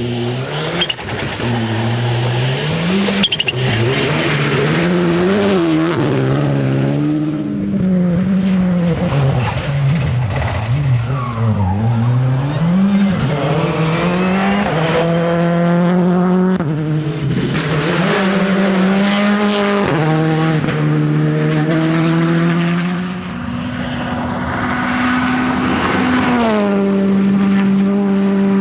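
Rally car engines driven hard on a stage: the pitch climbs and drops sharply at each upshift, several times, and in places falls away and picks up again, as when slowing for a corner and accelerating out.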